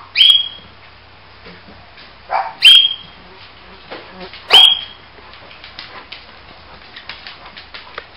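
A big dog barking three times, about two seconds apart, each bark short and very loud.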